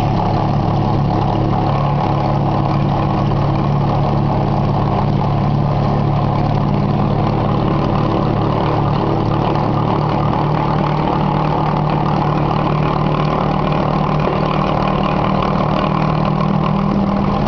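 Glass grinding machine running steadily: its motor-driven grooved grinding disc turning under the work heads, with a constant low motor hum under an even grinding noise.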